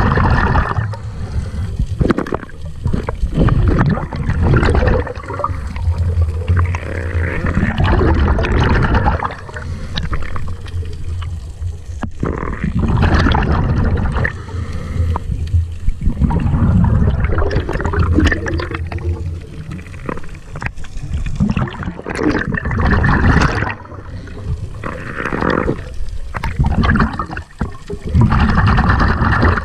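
Muffled underwater water noise heard through a submerged camera: rushing and gurgling that swells and fades every few seconds, with a few sharp clicks.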